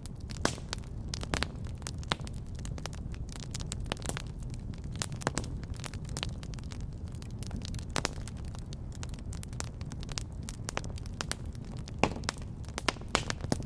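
A fire crackling, with irregular pops and snaps over a low steady rumble.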